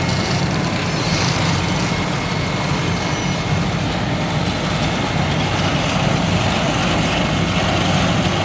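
Vögele Super asphalt paver working, its diesel engine running at a steady level under the noise of the paving machinery.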